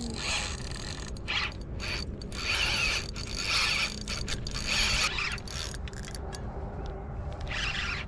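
Spinning reel under load from a hooked jack crevalle, its drag and gears clicking and whirring in repeated bursts about once a second.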